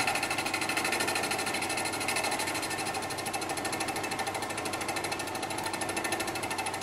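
Small milling machine running with a boring head and boring bar, boring out a handlebar clamp bore under slow hand quill feed. A steady machine sound with a fast, even rhythm.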